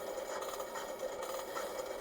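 Pick-and-place machine running as it assembles circuit boards: a steady hum with a repeating mechanical rhythm of about two to three strokes a second.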